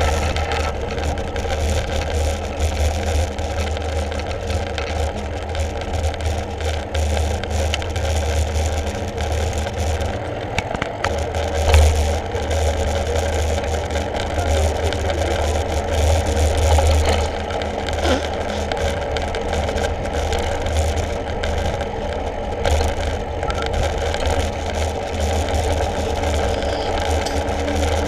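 A mountain bike rolling along a paved street, heard from the rider's camera: a steady rush of wind buffeting the microphone, with the hum of the tyres on asphalt and a single bump about twelve seconds in.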